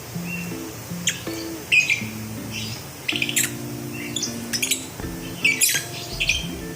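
Lovebirds chirping and squawking in many short, sharp calls that come every half second or so, over background music with held low notes.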